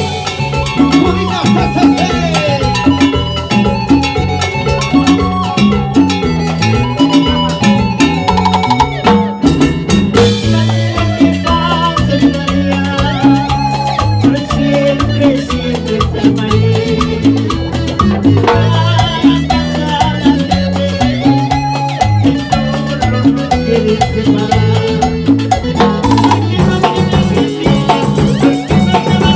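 Salsa band playing, with a stepping bass line under dense percussion.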